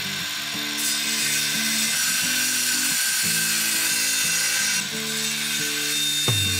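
Lotus LTCS18V-180BL brushless cordless circular saw running at full speed and cutting through a pine board: a steady motor whine, with the rasp of the blade in the wood heaviest from about a second in until nearly five seconds in.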